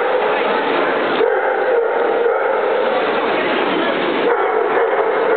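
Dogs barking and yipping over a steady, dense background din.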